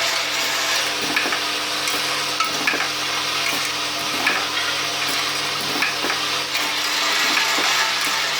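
Automatic oil seal assembly machine running, with a steady hum and hiss broken by irregular sharp clicks and clacks about every second as parts are handled and pressed.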